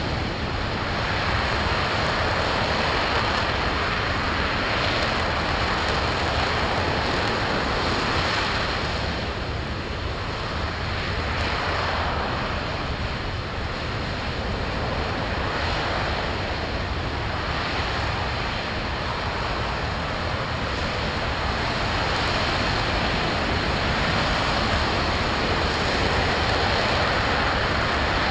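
RS-25 liquid-hydrogen/liquid-oxygen rocket engine in a long-duration hot-fire test, a steady rushing noise across all pitches that swells and eases slightly over several seconds.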